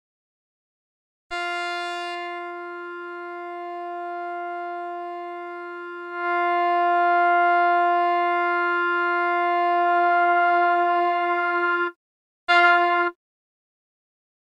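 Arturia OP-Xa V software synthesizer playing one long held note at a steady pitch. About six seconds in it gets louder and brighter, it takes on a fast wobble near the end, then cuts off, followed by a short repeat of the same note.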